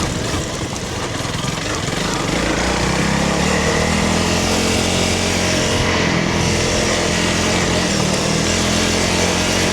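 Honda CRF300 Rally's single-cylinder engine running while the bike is ridden, easing off briefly about a second in and then holding steady revs, over a steady rush of wind and tyre noise.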